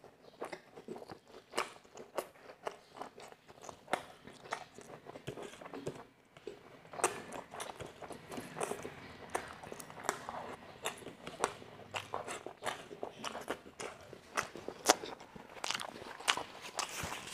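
Close-miked chewing and biting of crispy homemade fried chicken, with many short, irregular crunches and crackles.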